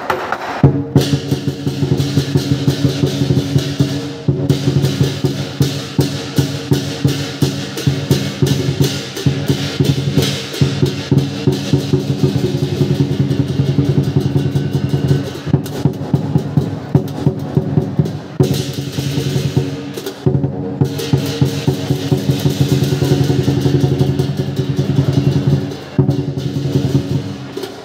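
Lion dance percussion: a large drum beaten in a fast, driving rhythm with clashing cymbals and gong ringing over it, broken by a few brief pauses.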